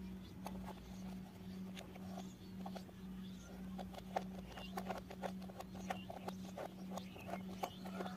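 Small plastic clicks and taps as toy construction-kit parts are handled and a plastic screw is turned in with a plastic toy screwdriver, over a steady low hum.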